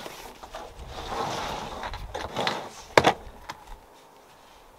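A folding solar panel being unfolded: fabric rustling and sliding, then one sharp knock about three seconds in as a panel section drops flat.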